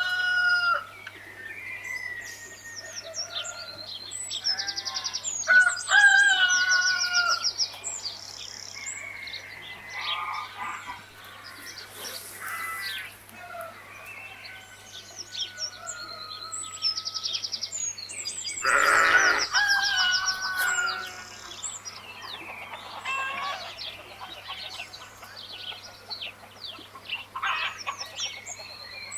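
Chickens clucking and a rooster crowing, mixed with small birds chirping in quick high runs, over a faint steady low hum.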